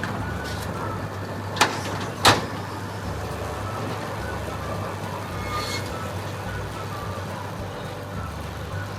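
Tractor engine running steadily as it pulls a CLAAS hay baler, with two sharp knocks about a second and a half and two seconds in.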